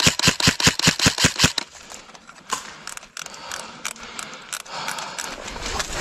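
Airsoft rifle firing a rapid string of about ten shots, roughly seven a second, over the first second and a half, followed by a few scattered single clicks. A low rumbling noise of movement rises near the end.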